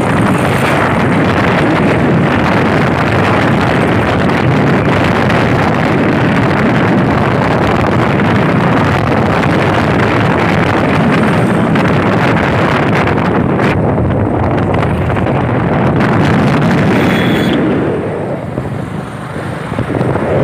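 Loud, steady wind rush on the microphone mixed with vehicle noise from riding a motorcycle; it eases for a couple of seconds near the end.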